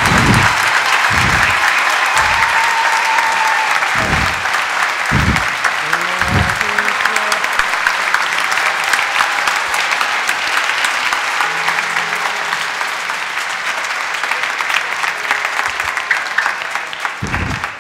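Large congregation applauding, clapping loud and continuous and slowly dying down toward the end. A few low thumps sound in the first six seconds and once more near the end.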